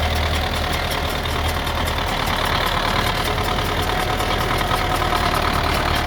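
Belarus 825 tractor's diesel engine running steadily, with a fast, even ticking over it.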